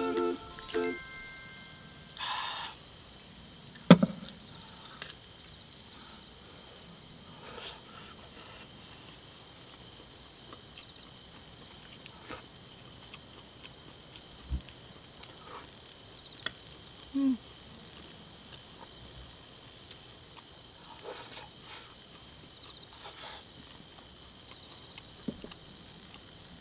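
Night insects, crickets, trilling in a steady high-pitched chorus. A single sharp click about four seconds in, with a few faint clicks now and then.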